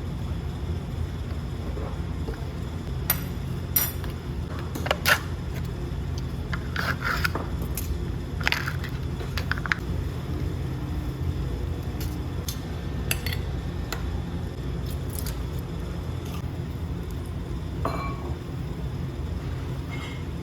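Scattered clinks, knocks and scrapes of glass, dishes and cutlery being handled, over a steady low rumble.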